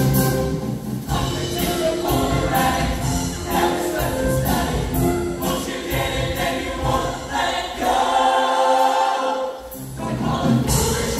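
Show choir singing with its live band combo, heard from the audience seats of an auditorium. Near the end the bass drops out for about two seconds while the voices hold a chord, then the band comes back in.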